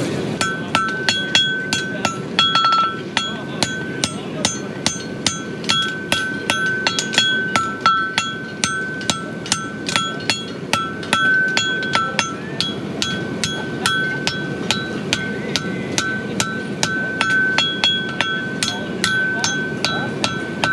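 Forging hammer striking a red-hot steel bar on an anvil as a farrier shapes a bar shoe. The blows come in a steady run of about three a second, and each leaves the anvil ringing high.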